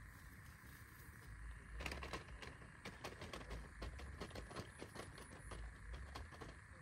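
Faint, irregular crackling and rustling of grass as a thin bamboo fishing rod is handled and moved through it, starting about two seconds in.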